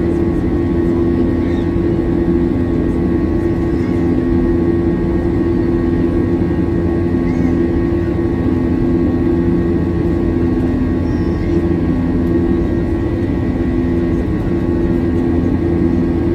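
Airbus A321 cabin during initial climb: the two IAE V2533-A5 turbofans running at high thrust, heard inside the cabin as a steady, loud rumble with a constant drone.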